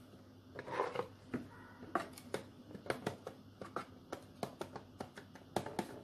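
A plastic spatula scraping and tapping cake batter out of a plastic mixing bowl into a parchment-lined loaf tin, in a quick irregular string of short soft scrapes and clicks.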